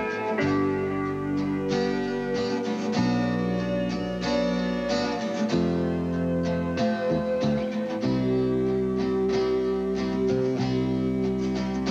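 Instrumental music: quickly struck notes over held chords.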